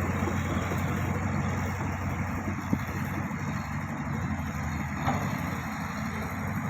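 Heavy construction machine's diesel engine running steadily with a deep low hum, with a sharp click about two and a half seconds in and a short knock near five seconds.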